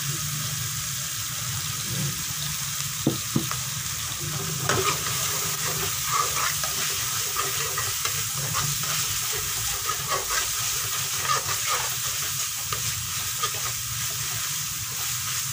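Ground spice paste sizzling in hot oil in a frying pan as a metal spatula stirs and scrapes it around, with two sharp knocks of the spatula about three seconds in.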